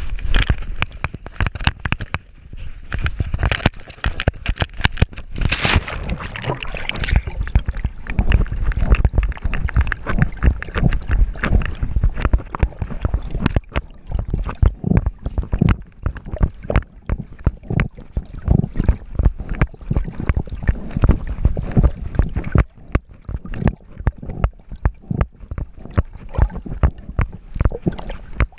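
Pool water sloshing and gurgling around a GoPro strapped to a swimming dog, the camera dipping in and out of the water with a rapid, uneven run of muffled knocks. A louder rush of noise comes about five seconds in.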